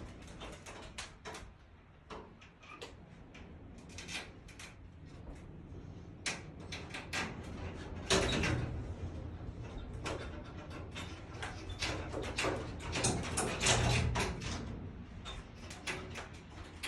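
Irregular knocks and clatter of footsteps on the fire tower's steep steps and deck, loudest about halfway through and again near the end, with wind buffeting the microphone.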